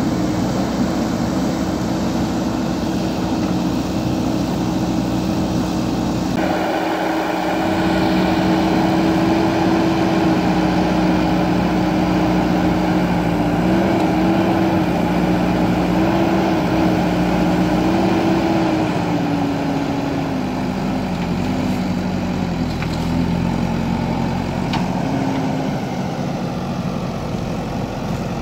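JCB backhoe loader's diesel engine running. About six seconds in it gets louder and harsher as it takes on load, its pitch wavers in the middle, then it drops lower toward the end.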